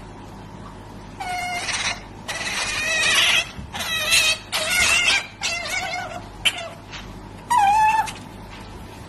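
Asian small-clawed otter squealing for food while being hand-fed: a string of about seven high, wavering squeaks in quick succession, the last one the loudest.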